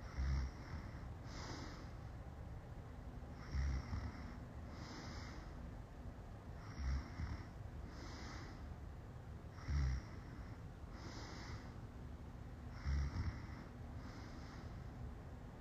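A person passed out drunk, snoring: five deep, rough snores about three seconds apart, each followed a second or so later by a softer breath.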